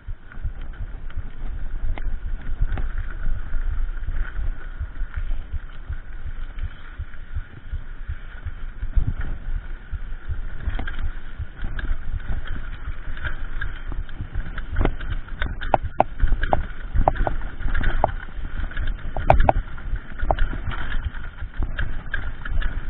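Mountain bike riding fast over a dirt singletrack: a steady rumble of tyres on the ground and air rushing past the camera, with the bike rattling and knocking over bumps. The sharp knocks come thickest about two-thirds of the way in.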